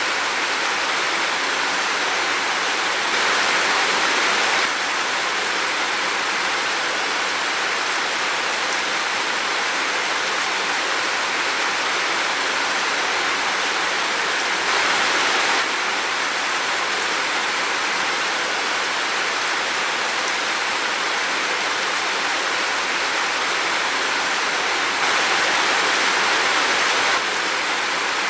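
Heavy rain falling in a dense, steady hiss, with three short stretches where it swells slightly louder: about three seconds in, near the middle, and near the end.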